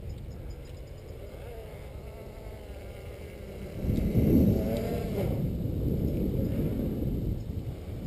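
Quadcopter with SK3 2822 1275kV brushless motors and 8x4.5 propellers whirring in flight over a low rumble; about halfway through it gets louder, its pitch wavering up and down as the motors change speed while it manoeuvres.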